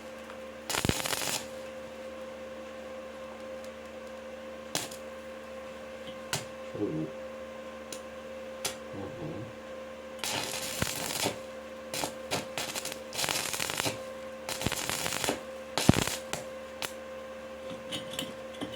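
Short bursts of scraping, about a second each, and a few sharp single taps on a freshly welded steel pipe, over a steady electrical hum.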